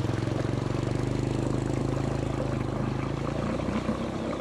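A small engine running steadily, its even note dropping away about three and a half seconds in.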